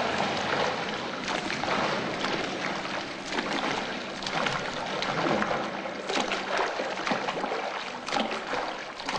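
A swimmer's front-crawl strokes splashing through pool water, an irregular run of splashes and churning water.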